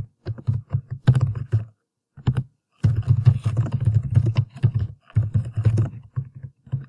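Typing on a computer keyboard: quick runs of keystrokes with a pause of about a second some two seconds in, then a dense flurry.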